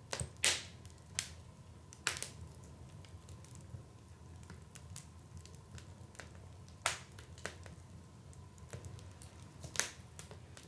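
Wood fire crackling in a fireplace: irregular sharp pops and snaps over a low steady rumble, the loudest pops about half a second in, near two seconds, near seven seconds and near ten seconds.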